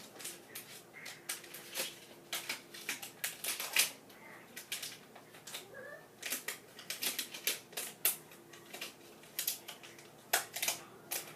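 Hands rummaging through small objects and paper: irregular clicks, taps and rustles.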